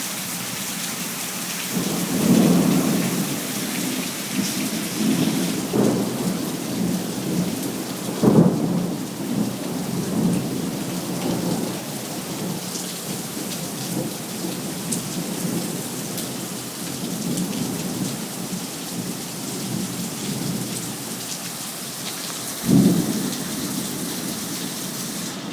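Heavy rain falling steadily. Low rumbling swells come several times over it; the sharpest and loudest is about eight seconds in, and another comes near the end.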